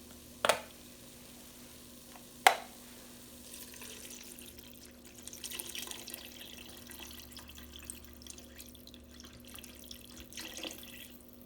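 Chicken broth being poured into a soup pot, a steady splashing pour lasting several seconds. Two sharp knocks come before it in the first few seconds.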